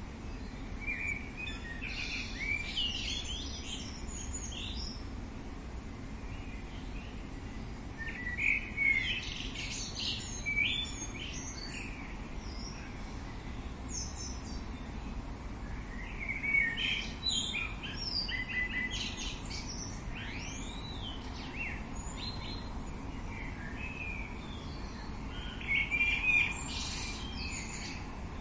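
Songbirds singing in clusters of quick chirps and warbles about every eight seconds, with a few sweeping whistled notes near the middle, over steady low background noise.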